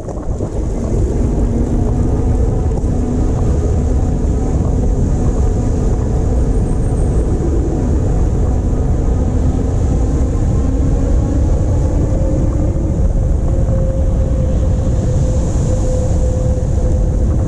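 Wind rushing over the microphone while riding an all-wheel-drive e-bike at speed, with a steady humming whine from the electric drive that drifts slowly in pitch.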